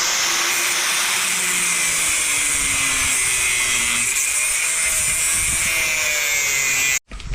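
A power tool cutting a piece down to size, running steadily under load and then cutting off suddenly near the end.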